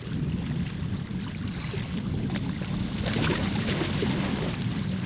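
Steady low rumble of a safari vehicle driving, with wind buffeting the microphone and small scattered rattles.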